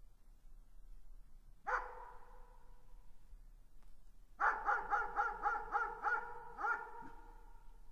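Dog barking in the distance: a single bark about two seconds in, then a quick run of about eight barks at roughly three a second, their tones ringing on briefly after each.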